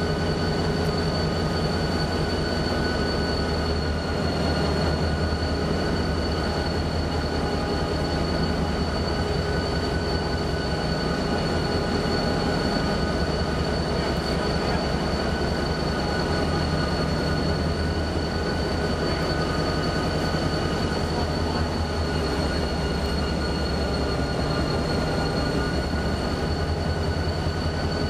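Roundhouse turntable turning with a steam locomotive aboard: a steady mechanical drone from the turntable's drive and wheels, with a steady high whine over a low, rapidly pulsing rumble.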